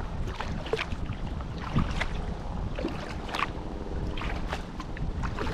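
Kayak paddle strokes in river water from a Necky Zora Sport kayak: irregular small splashes and drips come every fraction of a second over a low, steady rumble.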